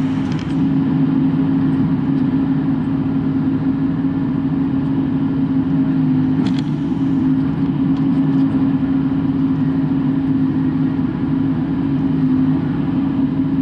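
Bobcat E42 mini excavator's diesel engine running steadily with an even hum, heard from inside the cab. A brief click about six and a half seconds in.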